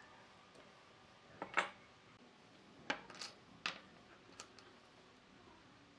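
Hand tools and small hard objects being handled and set down on a wooden workbench: a handful of sharp clicks and clinks, the loudest about one and a half seconds in.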